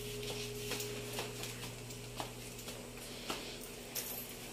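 Quiet room with a steady low hum and about five faint, sharp clicks or taps spread across the few seconds.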